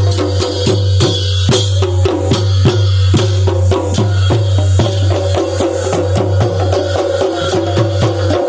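Nepali panche baja band playing: the damaha kettle drum and other percussion keep a fast, even beat, about four to five strokes a second, with a held wind note over it that grows stronger about halfway through.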